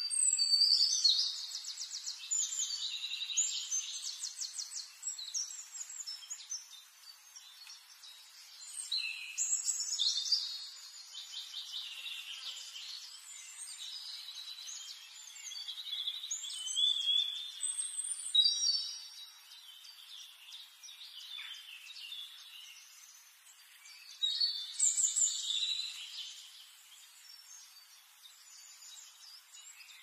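A mixed flock of aviary finches chirping and singing: bursts of high, rapid trilled notes and chirps, loudest at the start and coming again in waves every several seconds, with quieter twittering between.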